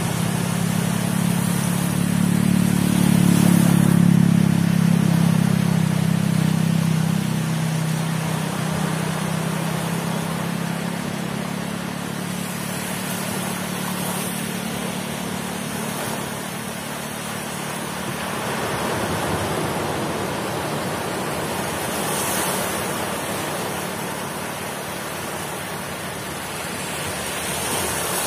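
Surf breaking and washing up a sand beach: a steady rushing noise that swells with each wave. A low rumble is strong over the first several seconds and then fades away.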